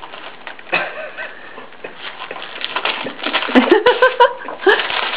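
Wrapping paper crackling and rustling as a dog paws and noses through it, with a short rising vocal sound about three and a half seconds in.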